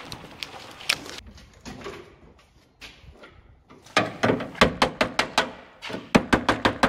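Handwork on a metal electrical panel and its heavy feeder wires: one sharp click about a second in, then from about four seconds a quick run of a dozen or so sharp clicks and knocks, several a second.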